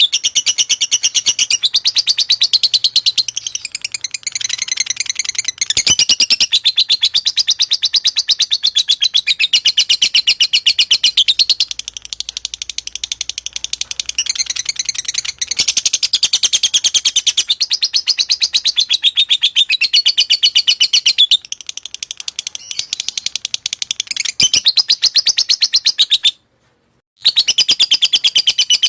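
Lovebird of the fighter type in long, rapid chattering song: very fast high chirps strung together in phrases with only short pauses, breaking off for under a second near the end.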